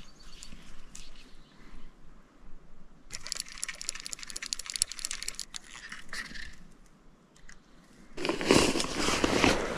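Fly reel clicking rapidly as line is wound in, for about three seconds. About eight seconds in, a loud rustling noise begins.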